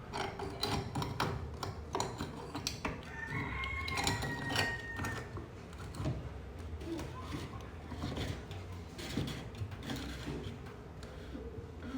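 Plastic clicks and knocks from a washing machine's drain filter and its cover being handled and fitted back into place, with a brief squeak about three seconds in.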